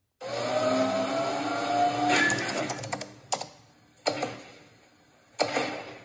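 Cartoon sound effects: a sustained, slowly rising tone for about two seconds, then three or four sudden sharp hits, each dying away.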